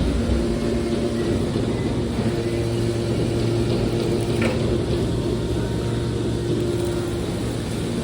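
Scrap metal baling press running with a steady low machine hum and noise, with a faint click about halfway through.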